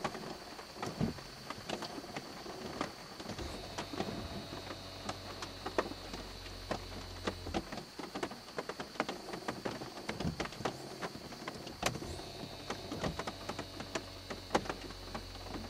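Faint steady ticking of rain on the car body, with the electro-hydraulic ABS pump motor of a 1987 Lincoln Mark VII humming low twice: for about four seconds starting a few seconds in, and again near the end. Each run is the pump recharging the brake pressure accumulator after pedal applications have drawn the pressure down.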